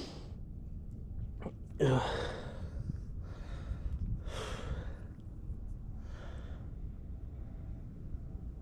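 A man's heavy, breathy exhales and sighs as he strains against a hooked fish, four or five of them a second or so apart, the loudest about two seconds in, over a steady low rumble.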